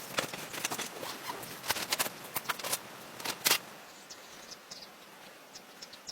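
A quick run of irregular sharp taps and clicks, loudest about three and a half seconds in, then thinning to a few faint ticks over a steady hiss.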